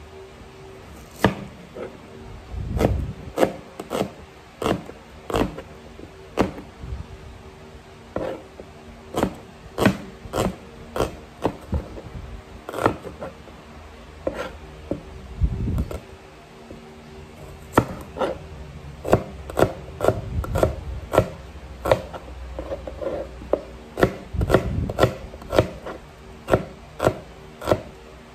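Kitchen knife slicing red onion and chopping garlic on a plastic cutting board: sharp knocks of the blade striking the board, about one or two a second, in irregular runs with short pauses.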